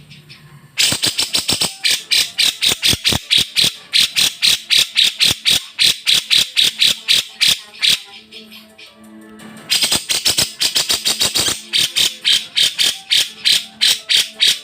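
Grey-cheeked bulbul (Javan cucak jenggot) singing a fast chattering run of sharp, high notes, several a second, in two long bouts with a short pause between them, played or sung to lure other birds into answering.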